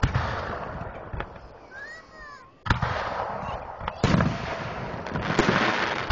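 Aerial firework shells bursting overhead: about four sharp booms a second or so apart, each trailing off in a rolling, echoing rumble.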